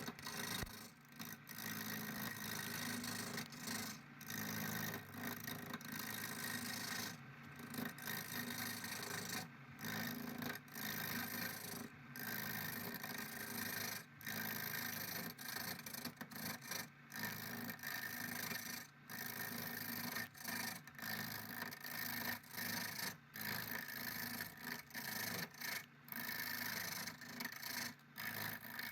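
Steady rasping and scraping of a tool or abrasive working a surface, over the hum of a running motor, broken by many short pauses.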